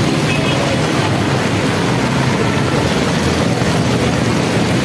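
Heavy rain pouring steadily, mixed with traffic running on the wet road: a dense, even hiss and rumble.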